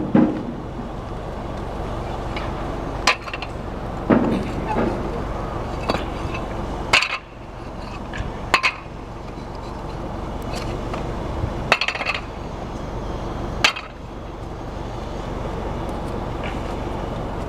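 Clay roof tiles clinking and knocking against one another as they are pulled off a roof and stacked, in sharp, irregularly spaced strikes, over a steady low hum.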